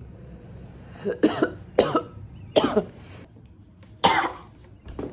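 A woman coughing: four harsh coughs spread over about three seconds.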